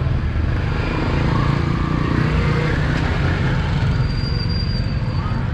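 Busy street traffic dominated by auto-rickshaw engines running and passing, a steady low rumble with faint voices in the background. A brief thin high tone sounds near the end.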